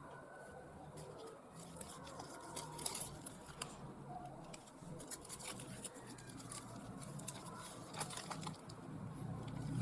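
Small items being handled close up: scattered light clicks, taps and scratchy rustles, a few sharper clicks around the middle and near the end.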